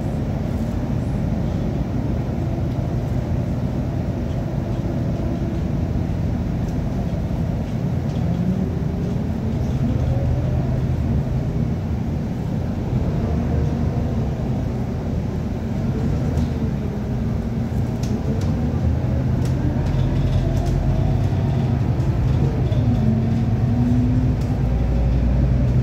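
City bus engine and gearbox heard from inside the passenger cabin while the bus drives, the engine note rising and falling in pitch several times as it pulls away and changes speed. The uploader says the drivetrain doesn't sound right and suspects an engine or gearbox problem.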